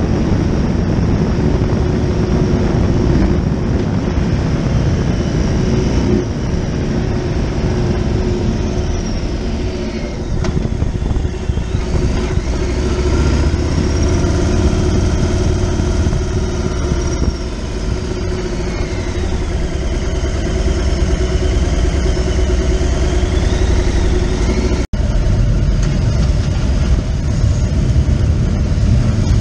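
Police motorcycle's engine running steadily under the rider as it cruises and slows, a continuous low rumble. A faint tone rises and falls in the middle.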